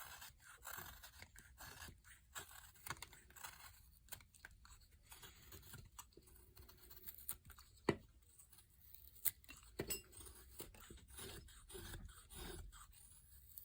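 Swiss Army knife blade shaving basswood: faint, irregular scraping cuts with scattered sharp clicks, the loudest about eight seconds in.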